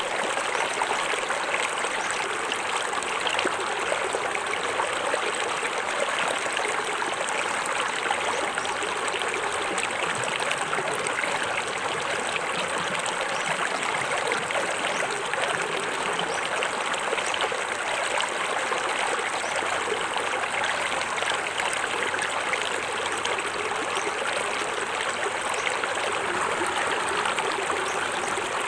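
Small forest waterfall: water splashing and running steadily over rocks into a stream.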